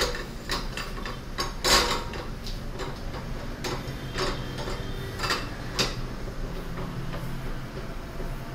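Irregular sharp taps and knocks on a wooden block held against a car radiator's top tank, about ten in all, the loudest about two seconds in, over a steady low hum.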